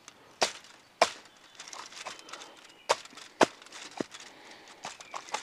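Hand hatchet chopping down through a whole roast chicken onto a foil-covered log: about five sharp blows, splitting the bird through the breastbone.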